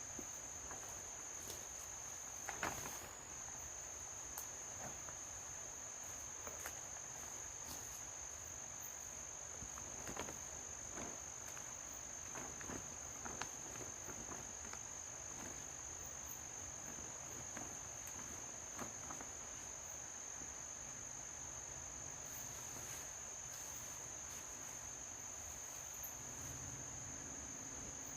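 Crickets trilling in a steady night chorus, heard as one continuous high-pitched tone. Scattered faint clicks and light knocks sound at irregular moments over it.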